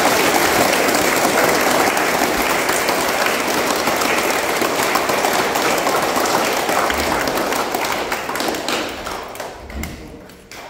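A large group applauding. The clapping dies away over the last couple of seconds, with a few separate claps standing out at the end.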